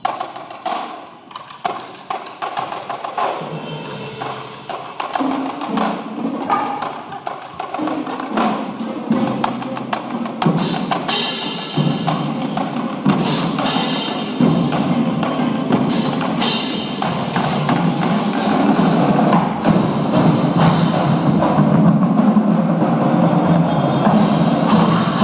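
Indoor drumline (winter percussion ensemble) playing: drums struck in rhythm with cymbal crashes, the whole ensemble growing steadily louder.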